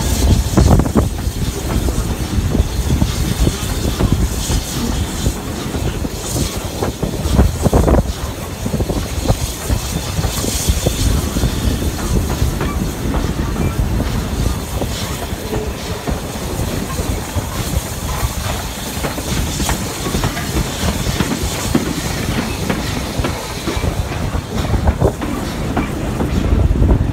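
Passenger carriages of a steam train running along the track: a steady rumble and hiss with the wheels clicking over rail joints.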